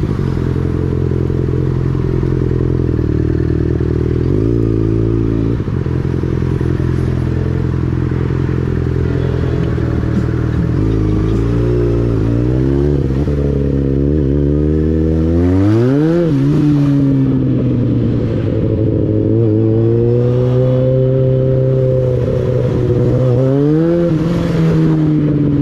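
Motorcycle engine idling steadily, then revving up about fifteen seconds in and accelerating, with its pitch rising and falling several more times as it speeds up and eases off.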